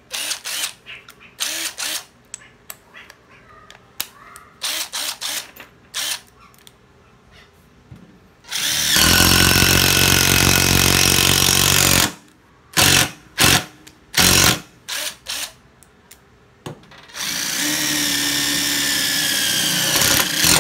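Makita TD131D 14.4 V cordless impact driver test-run in two bursts of about three and a half seconds each, running at a steady speed. Short clicks and handling knocks come before and between the runs.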